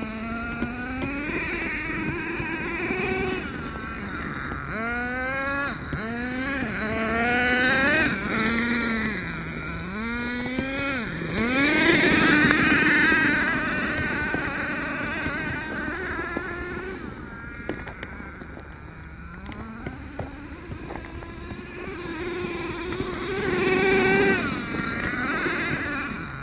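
Small two-stroke HPI F4.6 nitro engine in a custom Traxxas T-Maxx RC truck, throttled up and down in repeated short bursts as the truck is driven, its pitch rising and falling every second or two. About halfway through it makes a longer run at high revs. A quieter stretch follows before it picks up again near the end.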